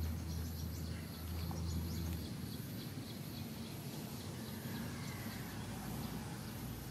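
Rural outdoor ambience: light clicks and scrapes as a baby monkey clambers into a plastic laundry basket during the first two seconds, over a low rumble that fades out about two seconds in and a faint, high, evenly pulsing tone.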